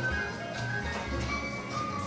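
Music with a low, pulsing bass line, sharp percussion hits and melody notes above.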